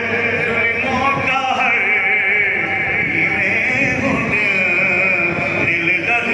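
A man singing a Saraiki kalam solo into a microphone, holding long wavering notes with ornamented vibrato.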